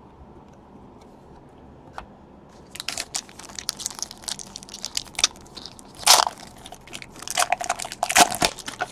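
Crinkling and crackling of plastic and packaging as hands handle trading cards. It starts about three seconds in as a run of irregular crackles after a single click.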